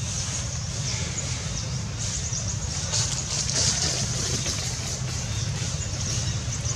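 Outdoor ambience: a steady low rumble with quick high chirps repeating over it, busiest about three to four seconds in.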